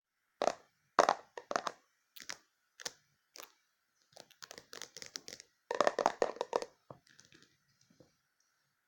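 Crunchy slime being squeezed and pressed by hand: a series of sharp separate cracks, then a denser run of crackling about halfway through that tails off near the end.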